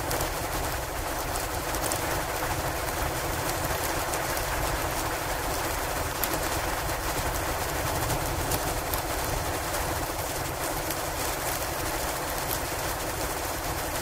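Wood fire crackling with many small, quick pops, over a steady hiss of wind from a snowstorm.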